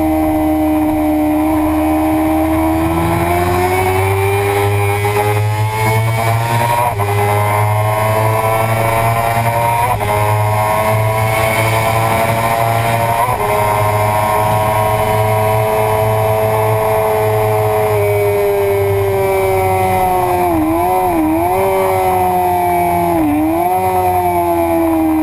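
Suzuki sport bike's engine at high revs under hard acceleration, heard from on board with wind rush over the microphone; the pitch climbs slowly and then holds steady for a long stretch. Near the end it dips briefly twice and then falls away as the bike slows.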